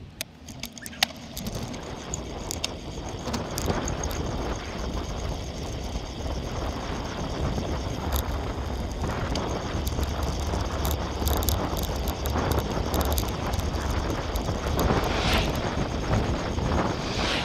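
Wind rumble on the microphone with tyre noise from a bicycle riding along an asphalt cycle path, getting louder over the first few seconds as the bike picks up speed. A few sharp clicks come from the bike near the start.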